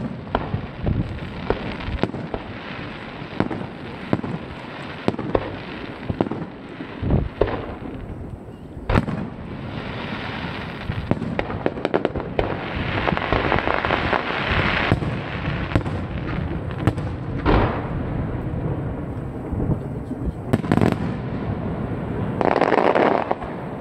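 Aerial firework shells bursting in the sky, with sharp booms at irregular intervals. There are denser stretches of many overlapping pops in the middle and a loud multi-burst barrage near the end.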